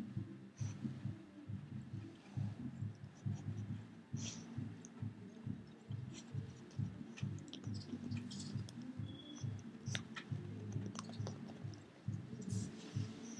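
Pekingese dog gnawing a rawhide treat close to the microphone: irregular low thumps several times a second, with scattered small clicks and crunches.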